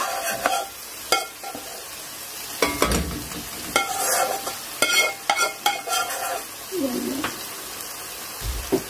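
Masala frying and sizzling in oil in a steel karahi, while a metal spoon scrapes and knocks against the pans, giving repeated sharp clicks over the sizzle.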